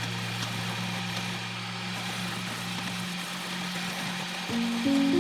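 Electric motor of a wood lathe running with a steady hum and a hiss of noise; the lowest part of the hum drops away about three seconds in. Background music with stepping melodic notes comes in near the end.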